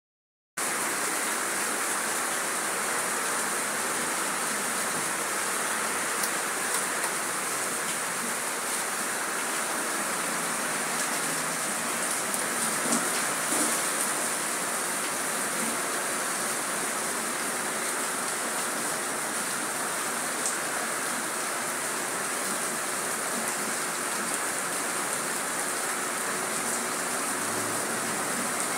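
Heavy rain falling steadily, with a few sharper drop hits here and there.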